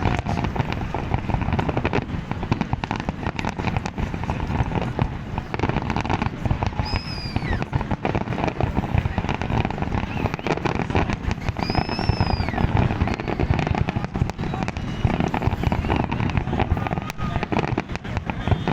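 Fireworks display: a continuous, dense barrage of bangs, pops and crackling shells. A short whistle rises and falls twice along the way.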